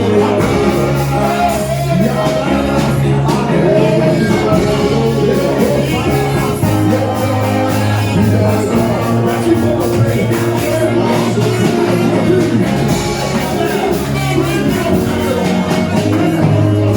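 Church praise music with singing over a steady beat and a moving bass line.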